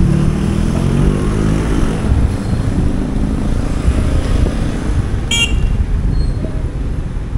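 Street traffic with motorcycle and tricycle engines passing close by, giving a steady low rumble and an engine note in the first couple of seconds. A single short, high horn beep sounds about five seconds in.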